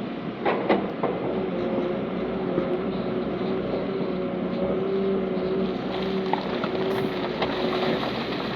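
Heavy diesel earthmoving machinery running steadily with a droning hum, with a few sharp knocks about half a second in and scattered clicks after.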